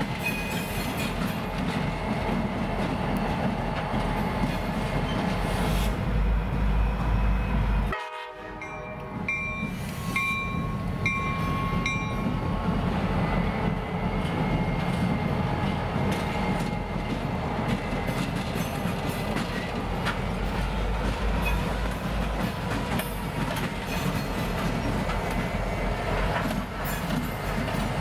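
EMD SD50-2 diesel-electric locomotives, each with a 16-cylinder 645 engine, running as the pair rolls past, wheels clicking over the rail joints. The sound dips sharply about eight seconds in, and a short series of ringing tones about a second apart follows.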